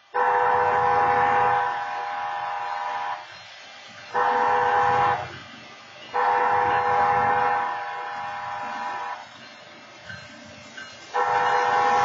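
Horns at a railroad grade crossing sounding the crossing signal: a long blast, a short blast, another long blast, and a fourth long blast starting near the end, part of the long-long-short-long pattern that announces a train approaching a road crossing. The first and third blasts drop in loudness partway through.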